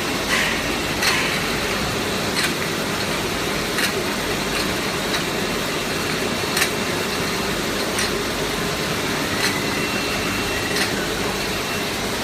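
Automatic six-head sauce bottle filling and capping machine running: a steady mechanical noise, with sharp clicks and knocks about every one to two seconds.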